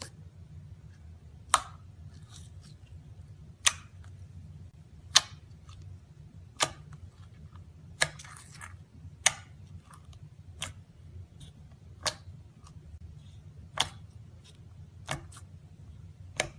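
Slime being pressed and stretched by hand, giving sharp snapping pops about once every second and a half over a steady low hum.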